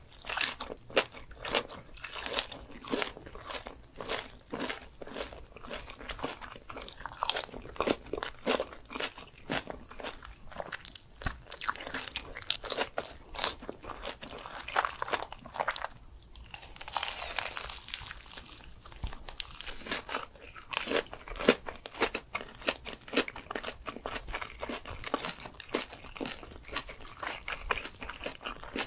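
Close-miked eating: crisp food being bitten and chewed, a dense, irregular run of sharp crunches.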